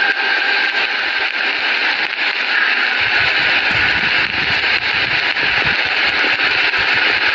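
Steady hiss and crackle of a very old, worn recording of the azaan (call to prayer) in a pause between the muezzin's phrases, a held note fading away at the start.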